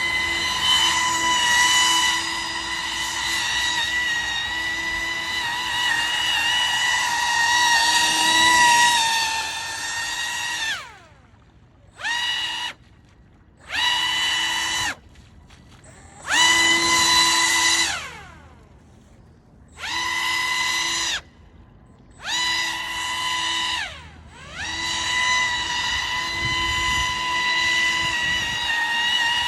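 Pro Boat AeroTrooper 25-inch RC airboat's brushless electric motor and air fan whining at a high steady pitch. About ten seconds in the throttle is cut, the whine falling away, and it is then blipped in five short bursts before running steadily again near the end.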